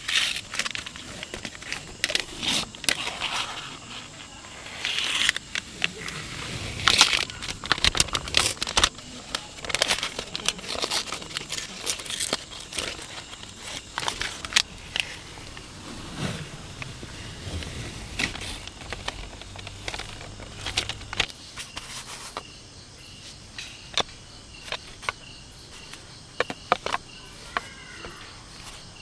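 Irregular crackling, crinkling and clicking, busy for most of the time and thinning out in the last few seconds.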